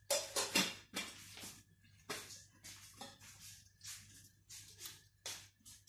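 Stainless steel cookware clattering and knocking in a string of short, irregular clatters, loudest in the first second, as boiled peas are drained.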